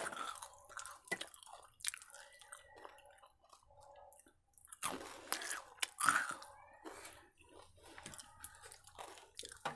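A person chewing and biting into a fried vada dipped in red chilli paste, crunching, loudest a little past the middle.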